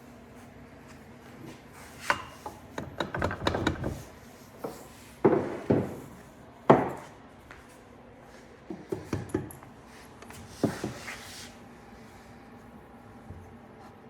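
Irregular knocks, taps and rubbing as a tight-fitting part is worked into place on a small engine during reassembly, with one sharp knock standing out near the middle.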